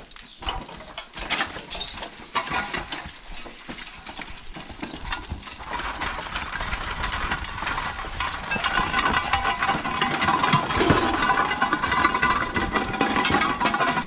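Horse-drawn sickle-bar mower clattering and rattling as a team of draft horses pulls it, its steel wheels rolling over gravel. The rattle grows busier and louder about six seconds in.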